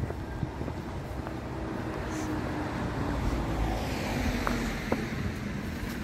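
A car going by on the street, swelling in the middle with a slowly falling tone, over a low wind rumble on the microphone.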